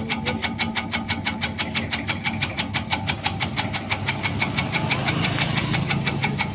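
Tobacco-cutting machine driven by a small water-pump engine, running steadily: a low engine hum with an even, fast clatter of about six strokes a second.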